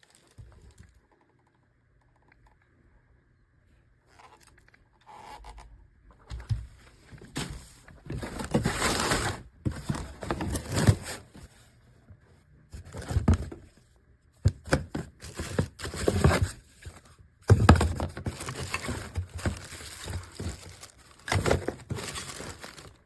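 Irregular bursts of scraping, rustling and crinkling, stopping and starting, after a few nearly silent seconds.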